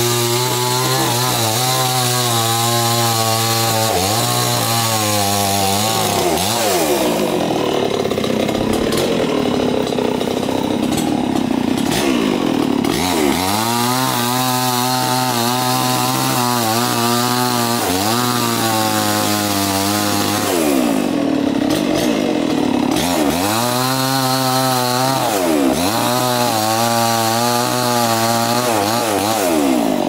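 Stihl chainsaw running and revving up and down over and over as it cuts into a fallen coconut trunk. It bogs down into a rougher, steadier note under load for a longer stretch about a quarter of the way in, and again past two-thirds.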